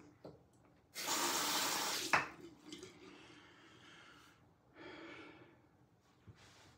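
A brief run of tap water lasting about a second, typical of rinsing a safety razor at the sink, followed right after by a short click. Later comes a soft breathy exhale.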